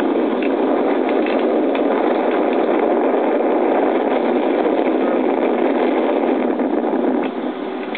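Steady rushing wind on the camera microphone of a parasailer high above the water: an even noise with no engine tone, easing slightly near the end.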